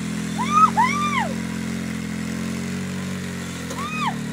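Polaris RZR side-by-side's engine running steadily at low revs as it crawls up a steep rock slab. Two short, high squeals that rise and fall come about half a second in, and another comes near the end.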